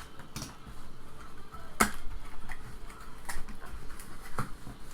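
Handling of a sealed hockey-card hobby box and its packaging: scattered sharp clicks and taps, the loudest about two seconds in.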